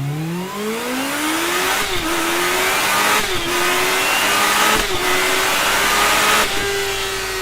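Kawasaki Ninja H2's supercharged inline-four accelerating hard: the revs climb steeply, then hold high with four brief dips and bursts of noise as it shifts up.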